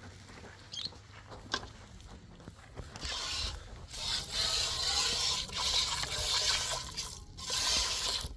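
Hand-milking: streams of milk hissing into a pail, starting about three seconds in after a few faint clicks.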